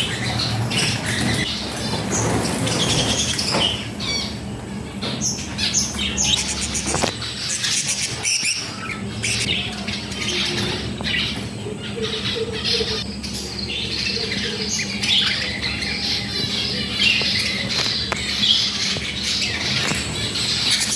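A flock of budgerigars chattering and squawking without a break as they are caught by hand from their breeding cages, with sharp clicks and knocks now and then and a low steady hum underneath.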